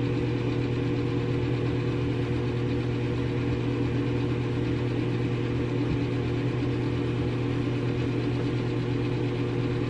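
Steady, unchanging low machine hum with a few fainter higher tones above it.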